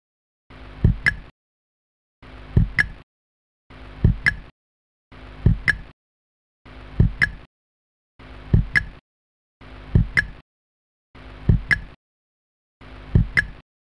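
Countdown-leader sound effect: nine identical short hits, one about every second and a half, each a brief swell ending in a low thump with a sharp click, one for each number counted down.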